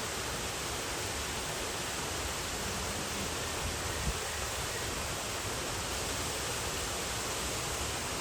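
Steady, even rushing noise of an outdoor enclosure, with one faint low knock about four seconds in.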